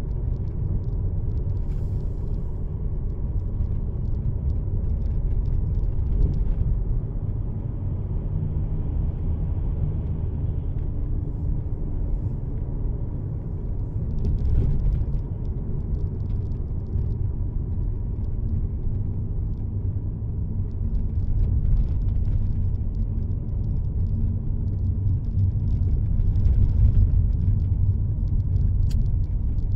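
Steady low rumble of road and engine noise inside the cabin of a moving car at highway speed.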